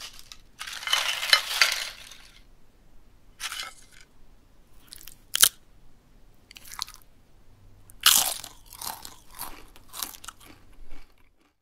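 Crunching of a chip being dipped, bitten and chewed: a long crunchy scrape early on, a sharp snap about five and a half seconds in, then a quick run of crunchy chews near the end that cuts off suddenly.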